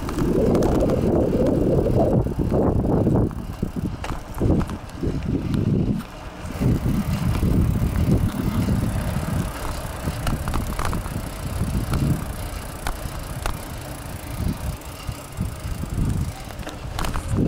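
Wind buffeting the microphone of a camera moving along an asphalt lane: an uneven low rumble that surges and eases, strongest in the first few seconds, mixed with road noise.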